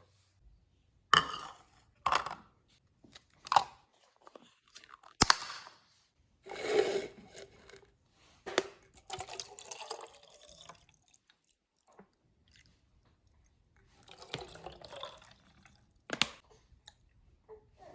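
Drinks and snack packages being handled and set down: a series of separate sharp clicks and knocks, with two longer stretches of crinkly rustling.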